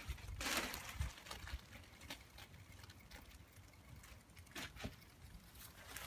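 Rustling and handling of a polyester sound-absorber panel being pressed by hand onto a fence, with a brief loud brushing sound about half a second in and a few soft taps after it.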